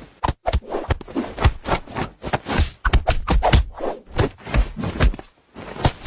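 A quick, irregular series of knocks and thumps mixed with scraping and rustling.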